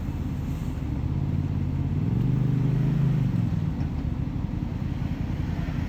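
An off-road vehicle's engine running under light load, revving up about two seconds in and easing back about a second later.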